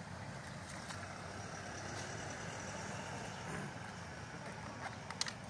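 Small motorcycle engine idling steadily through an aftermarket (unauthorized) muffler, a low, even pulsing exhaust note, with a slight swell about halfway through.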